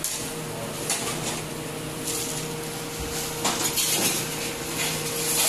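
Ceramic plates and serving spoons clinking and clattering as dishes are lifted from stacks and filled, in scattered knocks with a small cluster a little past the middle. A steady low hum runs underneath.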